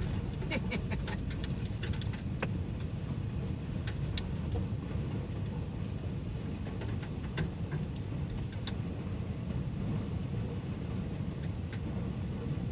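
Heavy rain mixed with small hail pelting a vehicle, heard from inside the cabin: a steady drumming on the roof and windshield, with scattered sharp ticks of hailstones striking the car.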